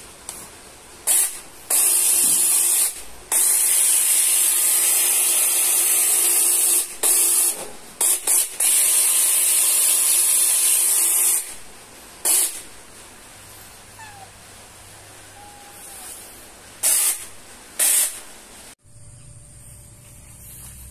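Cordless mini chainsaw run with no load in repeated trigger bursts: the electric motor and chain spin up to a loud high hiss, then cut off, a dozen times or so, the longest run lasting several seconds.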